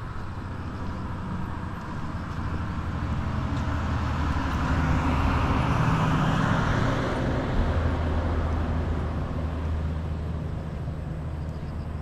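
A road vehicle passing by: its noise swells to a peak about halfway through, dropping in pitch as it goes by, then fades away.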